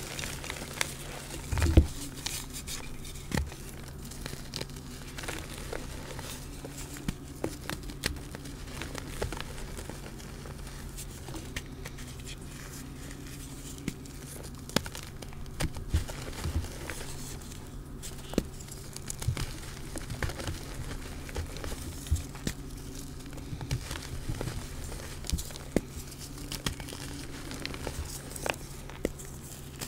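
Hands squeezing and breaking apart blocks of reformed gym chalk mixed with glitter. Dry, crunchy crackling and crumbling as the blocks fall apart into loose powder, with a louder crunch about two seconds in.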